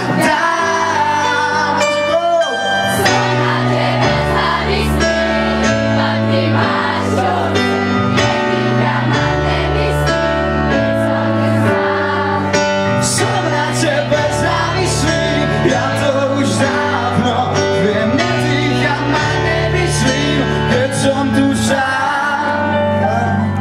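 Live pop-rock band playing an instrumental passage of the song: a bass line moving from note to note under held chords, with regular drum and cymbal hits and little or no singing.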